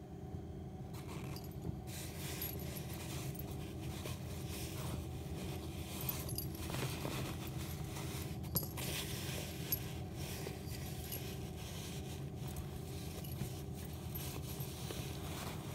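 Steady low hum under soft rustling and scraping of fabric bedding, with a few sharper scrapes, as a blanket is moved and handled.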